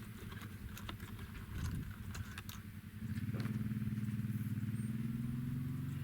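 Four-wheeler (ATV) engine running nearby, getting louder about halfway through and then holding a steady pitch.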